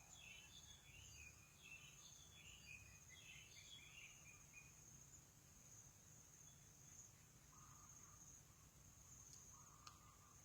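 Near silence with a faint, steady, high-pitched insect drone. Faint chirps of small birds sound over roughly the first four seconds.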